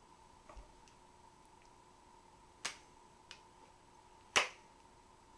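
Sharp clicks from the steel bipod and rifle being handled: a faint knock near the start, a sharp click just under three seconds in, a light tick, and the loudest click about four and a half seconds in.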